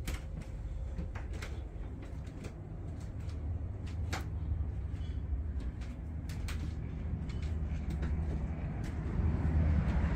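Steady low machinery hum aboard a cruise boat, with scattered light clicks and knocks; the hum grows louder near the end.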